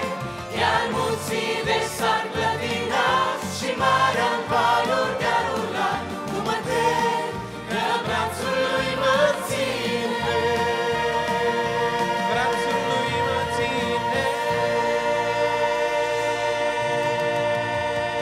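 Vocal group singing a Christian worship song into microphones, then holding a long final chord from about ten seconds in.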